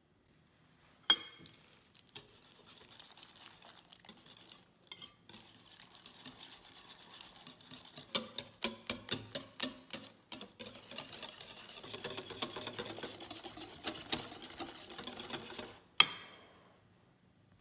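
Stainless steel balloon whisk beating pumpkin puree into eggs in a glass bowl: wet squishing with the wires clicking rapidly against the glass, growing faster and busier in the middle. A sharp ringing knock on the glass bowl comes about a second in and again near the end.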